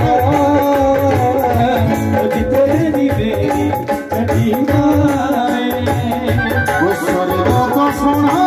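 Devotional folk music: a dholak drum keeps a steady beat under a held, slightly wavering melody line, with the audience clapping along.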